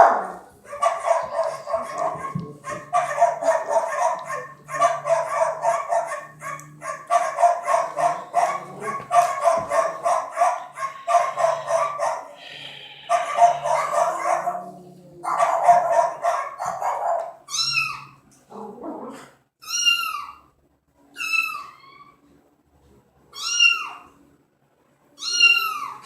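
Recorded cat sound effects played back. There are about seventeen seconds of harsh, rapidly repeated cat calls, then five separate meows, each falling in pitch, about two seconds apart.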